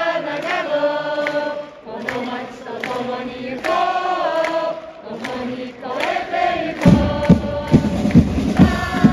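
Football supporters singing a club chant together, many voices in unison on long held notes. About seven seconds in, a steady loud beat of thumps joins the singing, about three a second.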